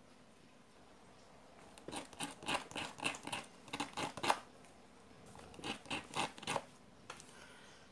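The tip of a flatlock sewing machine's looper is rubbed in quick back-and-forth strokes on a small square of emery paper, a dry scratching that dresses its point sharp again. One run of a dozen or so strokes begins about two seconds in, then a shorter run of a few strokes follows after a brief pause.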